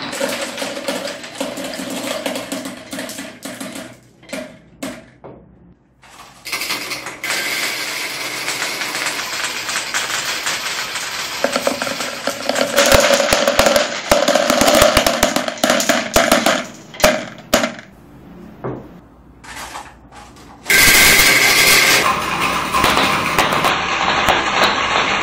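Many marbles rolling down wooden marble-run chutes and curved wooden tracks, clattering against the wood and each other in dense rapid rattles. The clatter thins out twice into quieter lulls, then surges loud again near the end.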